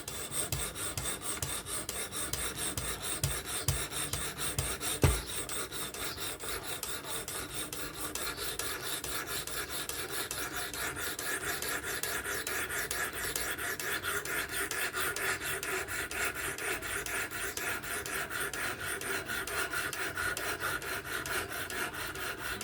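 A 220-grit sharpening stone on a Work Sharp Professional fixed-angle sharpener is stroked rapidly back and forth along the S30V blade of a Spyderco Kapara knife, making a continuous rasping scrape. There are a few low knocks in the first seconds, and a sharp knock about five seconds in. The scraping stops abruptly at the end.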